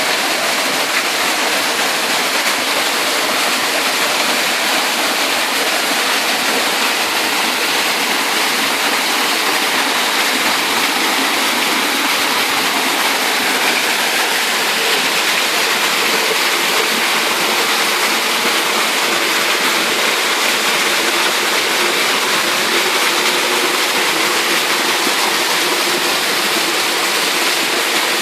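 Waterfall: water pouring and splashing with a steady, loud rush that does not change.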